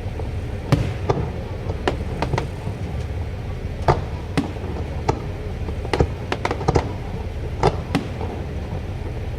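Fireworks going off: about fifteen sharp bangs and cracks at irregular intervals over a steady low rumble.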